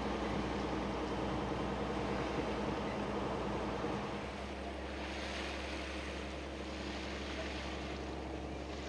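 A boat's engine running steadily under way, a low drone with steady tones. About four seconds in the engine tone shifts and wind and water noise comes up.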